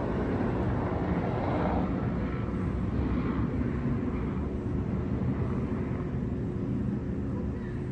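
Steady outdoor background rumble, strongest low down, its higher hiss thinning out after about two seconds.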